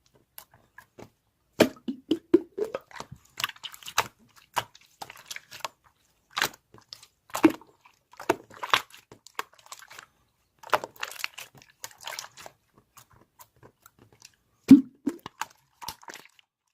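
Crunchy food being chewed: irregular crisp crunches and bites in clusters, with a sharp, loud crunch near the end.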